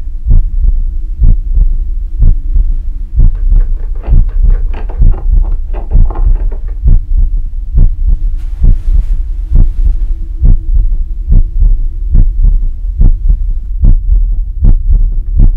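Heartbeat sound effect on the soundtrack: heavy, evenly spaced low thuds about twice a second over a steady low droning hum.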